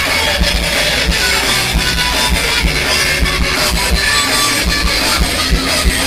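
Live progressive rock band playing: electric guitars over a drum kit keeping a steady beat, loud and harsh as captured on a phone.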